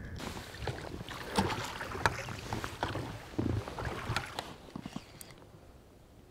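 Handling noises in an inflatable boat: an irregular run of clicks, knocks and rustling as a caught perch and fishing gear are handled, dying away about five seconds in.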